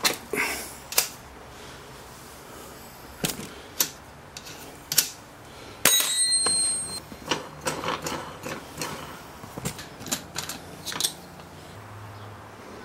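Scattered sharp clicks and knocks of a metal wrench and wooden parts handled on a homemade drill-powered mini lathe, with a louder stretch of about a second near the middle.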